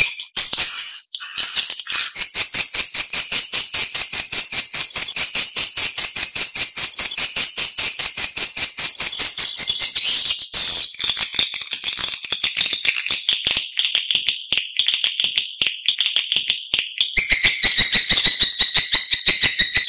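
Recorded edible-nest swiftlet calls: a rapid, unbroken rattling twitter of many high chirps a second, played as a lure to draw swiftlets to a nesting house. The pitch and pattern shift a few times, about two seconds in, around ten seconds, and near the end.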